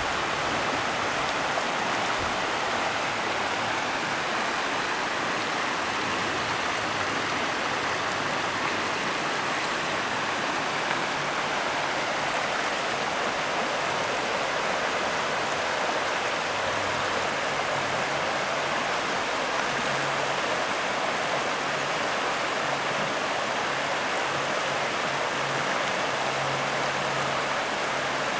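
Steady rush of a river flowing over rocks, close by.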